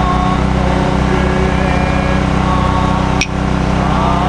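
A steady, even engine hum that neither rises nor falls, with faint voices in the background and a short click with a brief dip about three seconds in.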